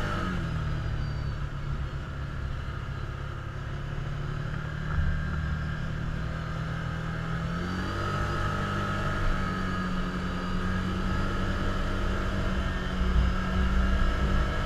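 Can-Am Commander side-by-side's V-twin engine running steadily while driving, heard from the driver's seat. Its note drops just after the start, holds lower, and rises again about eight seconds in.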